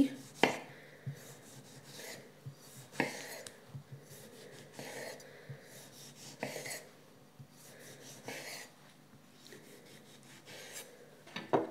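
Kitchen knife slicing a tomato on a wooden cutting board: short sawing strokes through the flesh and soft taps of the blade on the board, coming irregularly every second or two.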